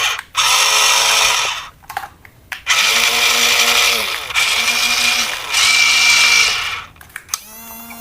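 Small electric motor of a battery-powered toy whirring in repeated bursts of about a second or so, starting and stopping four times, then a quieter, steadier whine near the end.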